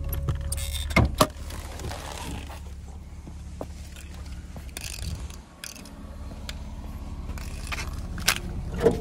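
Sharp clicks from a car's hood release being pulled, then the clack and rattle of jumper-cable clamps being handled near the end, over a steady low hum.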